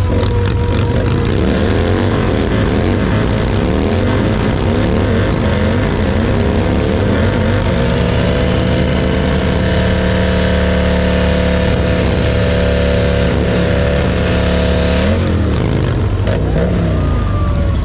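Touring motorcycle engine doing a burnout: it revs up and down for several seconds, then holds a steady high pitch while the rear tyre spins, drops off about fifteen seconds in, and is blipped a few more times near the end.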